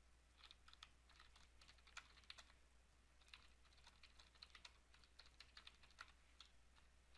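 Faint computer keyboard typing: short runs of quick keystrokes with brief pauses between them, over a steady low hum.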